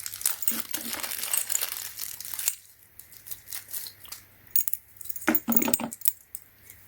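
Handling of a small metal RC hex driver and its interchangeable bits: rustling and crinkling for the first couple of seconds, then scattered light clicks and clinks of metal parts.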